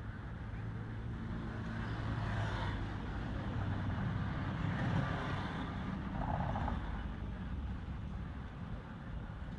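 Low, steady hum of a motor vehicle's engine, growing louder to a peak about halfway through and then easing off, as a vehicle passing by would.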